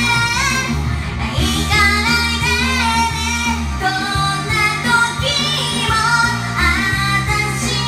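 Karaoke: a high voice singing a Japanese pop song over a karaoke machine's backing track, with a steady bass line and a wavering sung melody.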